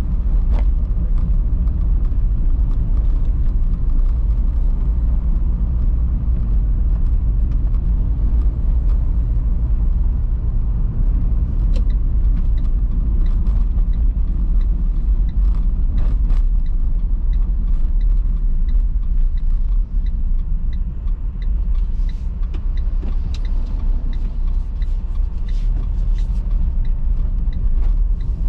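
Steady low rumble of a car driving along a suburban road, with a few faint clicks.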